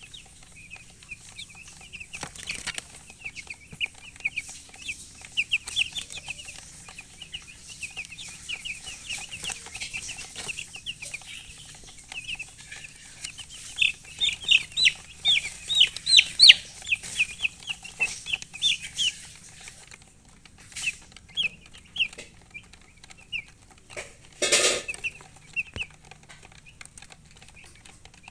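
Young chickens chirping: a long run of short, high peeps, coming thick and fast and loudest midway. Near the end there is one brief, louder noisy burst.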